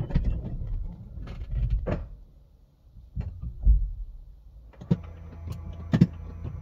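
NIO battery swap station machinery under the car installing the new battery pack: low mechanical rumbling and clunks, with a heavy thud about three and a half seconds in. From about five seconds a steady electric hum sets in, broken by sharp clicks.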